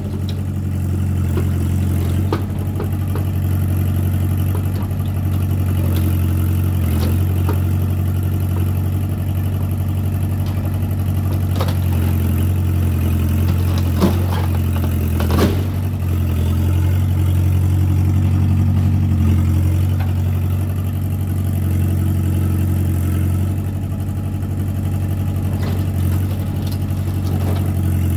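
Mini excavator's diesel engine running steadily while it digs through a debris pile, with a few sharp clanks and knocks from the bucket and debris, the loudest about halfway through.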